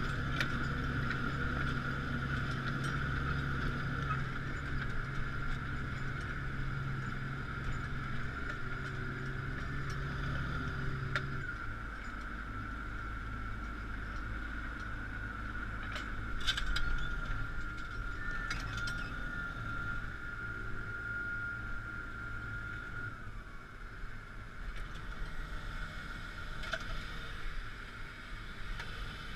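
Claas Axion 840 tractor running under load with a steady engine drone and a steady high-pitched whine. The engine note drops to a lower pitch about eleven seconds in, and a few sharp clunks come a little past halfway.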